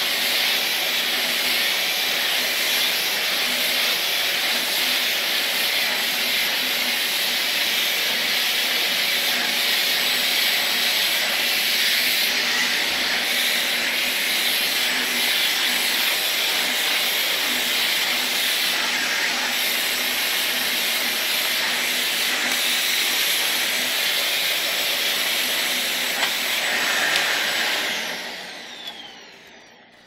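Samsung SC18M21A0S canister vacuum cleaner running steadily with its nozzle on a rug, a loud even suction hiss. Near the end the motor cuts out and winds down with a falling whine.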